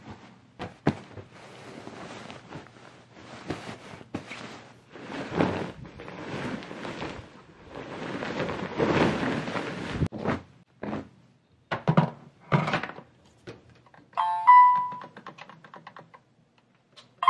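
Bedding rustling as a duvet and sheets are moved about, then a few knocks. Near the end come short electronic chimes from the controls of a SMEG electric kettle as it is switched on.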